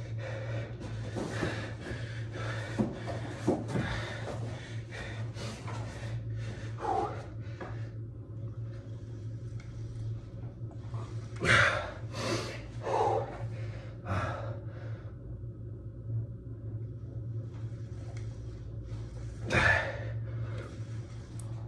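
A man breathing hard from exertion during ab wheel rollouts, with repeated sharp exhalations and gasps; the loudest come about halfway through and again near the end. A steady low hum runs underneath.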